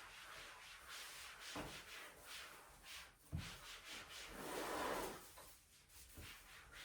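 Tidying sounds: a series of short rubbing swishes, like a cloth wiped or objects slid across a surface. There are two soft knocks, about one and a half and three seconds in, and a longer swish shortly before the five-second mark.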